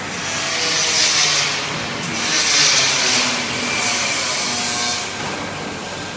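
Rushing hiss of air on a high-shear mixer granulator. It swells louder about a second in and again about two and a half seconds in, then eases off.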